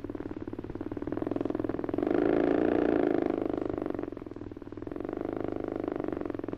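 Motorcycle engine running with a rapid, even beat. It gets louder and wavers in pitch about two seconds in, fades briefly past the middle, then comes back up.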